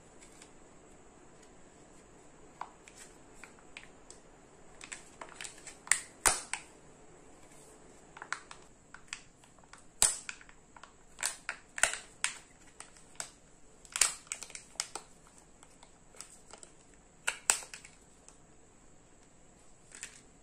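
Plastic Kinder Joy egg packaging handled and opened by hand: irregular sharp clicks and crackles of the plastic shell, the peeled foil seal and the toy capsule, coming in scattered bursts with quieter handling between.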